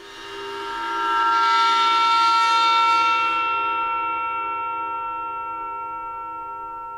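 26-inch Paiste Symphonic Gong bowed at its edge with a rosined cello bow: a sustained drone of several steady pitches at once that swells up over the first couple of seconds, then slowly fades as the highest overtones die away.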